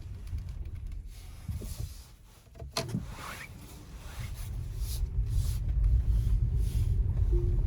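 Low rumble of a Tesla Model S on the move, growing louder over the second half, with one short sharp sound about three seconds in.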